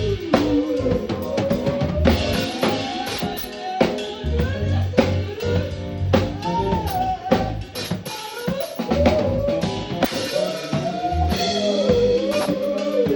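Live band music: a drum kit with kick and snare keeps the beat under a bass line. A lead melody slides and bends in pitch over the top.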